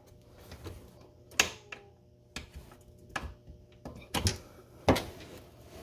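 Irregular sharp plastic clicks and knocks as a fog light wiring connector is worked and unclipped from its light behind a car's front bumper cover.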